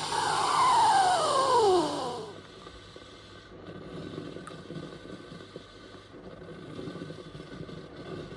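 Sage espresso machine running: a loud hiss with a whine that falls steadily in pitch, cutting off about two seconds in, followed by a quieter low mechanical noise.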